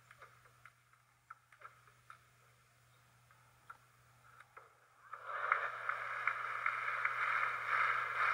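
Table tennis ball clicking faintly and irregularly off bats and table during a rally. About five seconds in, the arena crowd breaks into loud applause as the point ends.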